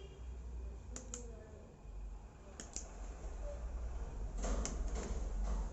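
Replacement laptop keyboard being pushed into a Dell Inspiron 15 3000's palmrest and snapped into its latches: sharp plastic clicks in pairs about a second and two and a half seconds in, then a cluster of clicks and scraping near the end as it seats.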